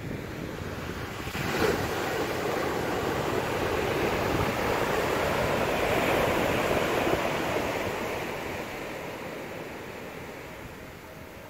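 Ocean surf: a wave breaks with a sudden rush about one and a half seconds in, swells, then slowly washes away and fades.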